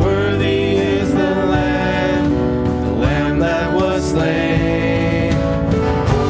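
Church worship band performing a worship song: several singers in harmony over acoustic guitar and band accompaniment.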